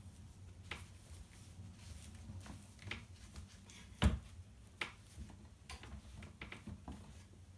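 Hands rubbing, smoothing and pulling cross-stitch fabric stretched taut on a wooden scroll frame: faint scattered rustles and scrapes, with one soft thump about four seconds in.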